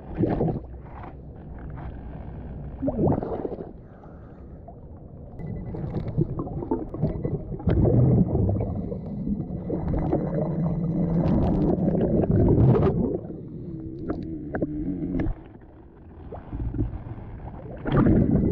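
Muffled underwater rumbling and gurgling from the diver's bubbles and movement, as heard by a camera underwater. It swells and fades, with a few knocks, and goes quieter about four seconds in and again near the end.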